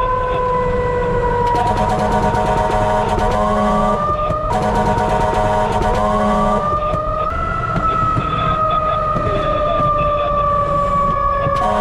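Fire truck siren wailing: a slow falling tone that swoops back up twice and falls away again, over a constant low engine and road rumble. A second, steadier tone joins in twice.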